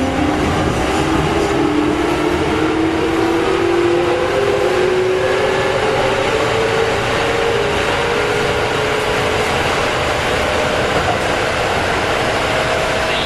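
Keikyu Type 600 train's Mitsubishi GTO-VVVF inverter and traction motors whining, several tones slowly rising in pitch as the train accelerates, over a steady rumble of wheels on the track. The whine fades after about nine seconds, leaving mostly the running rumble.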